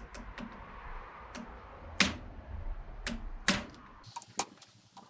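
A series of sharp metallic knocks, irregularly spaced, from striking a car heater blower motor to drive its fan impeller off the shaft. Two knocks about 2 and 3.5 seconds in are the loudest, and a few quick light taps come near the end.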